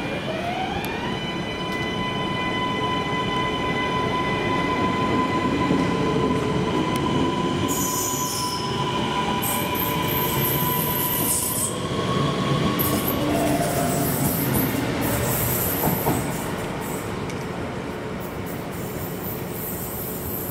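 CP series 3400 electric multiple unit moving off, its traction motors whining in a pitch that rises over the first second and then settles into steady high notes over a rumble of wheels. From about eight seconds in come bursts of high-pitched wheel squeal.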